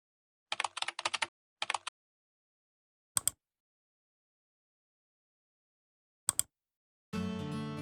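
Computer-keyboard typing clicks in short bursts: a quick run of keystrokes from about half a second to two seconds in, then single pairs of clicks around three and six seconds in, with dead silence between. Acoustic guitar music starts near the end.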